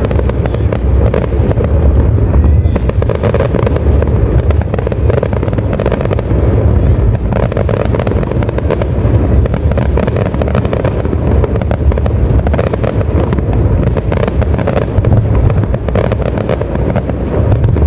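Fireworks display going off without a break: deep booms and crackling bursts, one after another.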